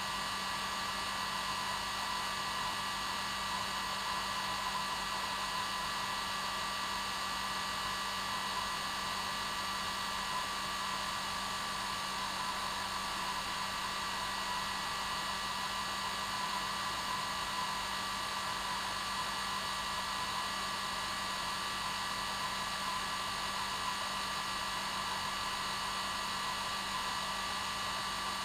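Hair dryer running steadily on its normal setting: an even rush of blown air with a constant motor hum, unchanging throughout.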